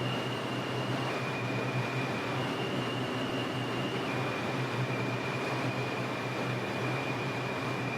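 R142 subway car running between stations, heard from inside: a steady rumbling hiss with a thin high tone that steps down and up in pitch a few times.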